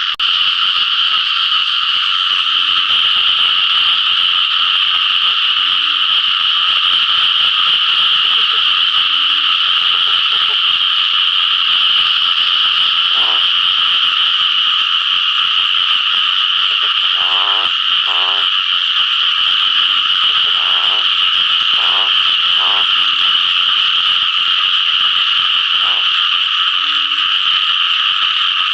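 Loud, dense frog chorus: a steady high-pitched din of many calling frogs, with faint low calls repeating every few seconds and a few separate short calls standing out in the second half.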